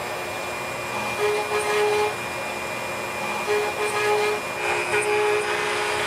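Stepcraft M1000 CNC router's spindle running and milling into a wooden board, with a steady hiss and a constant hum. A second tone cuts in and out several times as the machine works.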